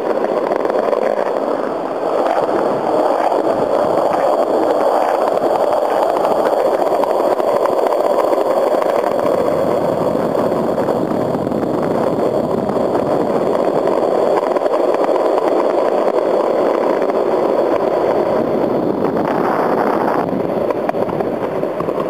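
Skateboard wheels rolling steadily over pavement: a continuous rumble that changes little in level.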